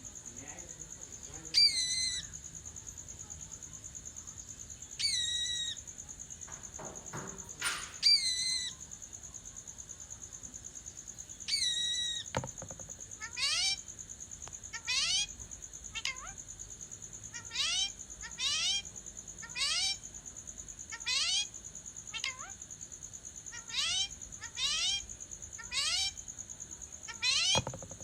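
Parrot calling: a few separate pitched calls, then a long run of short calls that sweep upward, repeated about every second and a half.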